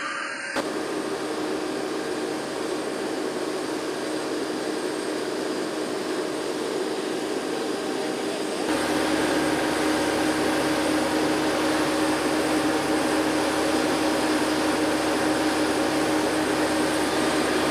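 Steady whining hum of aircraft machinery running on an airfield apron, with several steady tones over a noisy rush. About a second in and again about nine seconds in, the sound changes abruptly, getting a little louder the second time.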